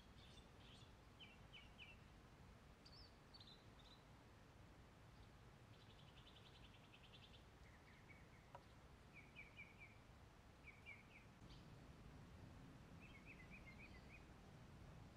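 Faint birds chirping: short chirps and little trills every second or two over a low, steady background rumble.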